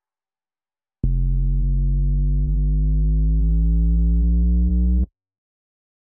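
Cinematic riser sound effect: a loud, deep synthesized tone that starts abruptly about a second in, creeps slowly upward in pitch for about four seconds, and cuts off suddenly.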